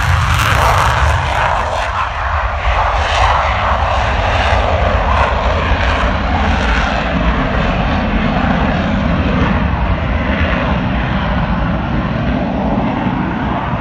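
Jet aircraft engines running at high power on a take-off, a loud, steady roar with a hiss above it.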